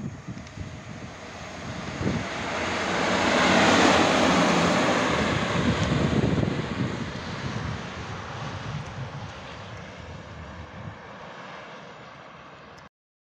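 EU07 electric locomotive running light past at speed: wheel-on-rail rushing noise that swells to a peak about four seconds in, then fades as it moves away. The sound cuts off suddenly near the end.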